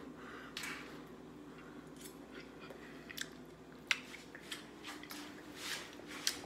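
A person chewing food, with a few short sharp clicks and crunches scattered through.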